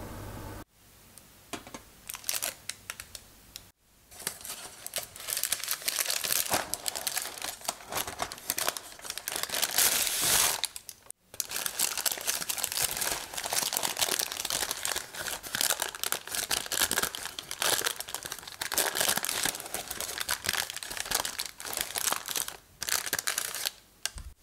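Crumpled parchment baking paper crinkling and rustling as hands handle it and open it out around a baked cake, in a dense run of crackles that pauses briefly twice.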